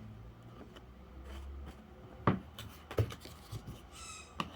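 A few light clicks over a low, steady room hum; the loudest click comes a little over two seconds in, with two fainter ones about a second later.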